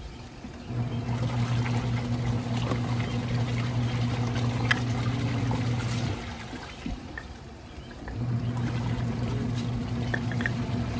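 Portable twin-tub washing machine running: its motor hums steadily for about five seconds, stops for about two seconds, then starts again, over trickling, pouring water.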